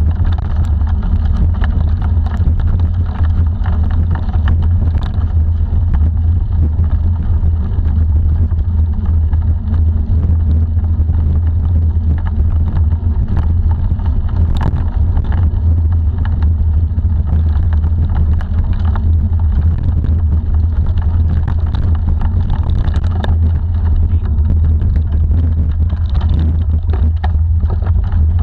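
Steady low rumble of wind buffeting the action camera's microphone and bicycle tyres rolling fast over a dirt forest track, with scattered knocks and rattles as the bike jolts over bumps.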